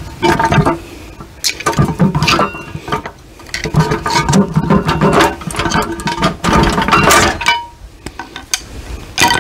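A steel pry bar levering and knocking at the joint of a cast-iron transmission housing: repeated metal clinks and scrapes in bursts, some with a short ring. The housing section is being worked apart at its seam.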